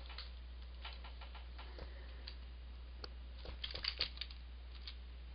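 Computer keyboard keystrokes: scattered single key clicks, then a quick run of clicks about three and a half seconds in, over a faint steady low hum.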